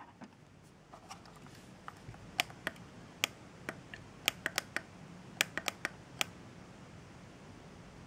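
Light, irregular plastic clicks and taps from a small white plastic smart-switch housing being handled, about fifteen sharp clicks, some in quick clusters, stopping a little after six seconds in.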